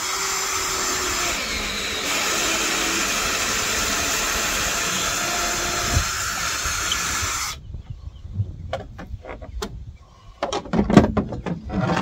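Cordless drill boring through a wooden board with a large bit, running steadily and stopping about seven and a half seconds in. A series of sharp knocks and clatter follows, loudest near the end.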